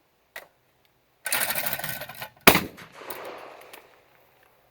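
A single loud shotgun shot from a Baikal 12-gauge double-barrel, about two and a half seconds in, with an echo fading over about a second. About a second before it there is a rough, noisy rush of sound.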